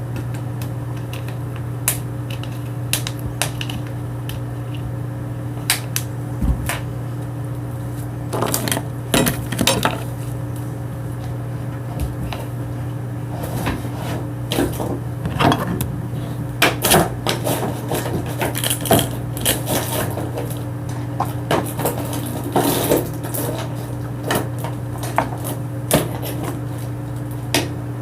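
Sticky slime being worked by hand: irregular sharp clicks and pops, busier in the second half, over a steady low hum.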